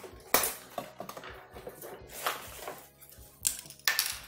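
Metal clicks and scrapes of a motorcycle disc brake caliper and its pads being handled and fitted by hand. There is a sharp click about a third of a second in, and a few more near the end.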